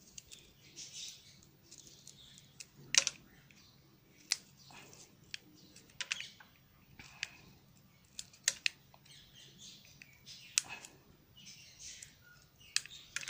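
Cutter blade shaving the wood off a soft 10B graphite pencil: repeated short scraping strokes, with several sharp clicks among them as slivers come away.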